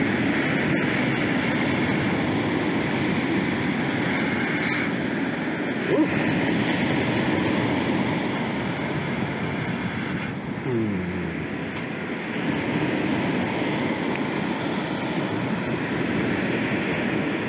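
A person blowing hard through fingers pinched into a diamond shape, a steady rush of breath aimed as a jet of air at campfire embers to fan the fire.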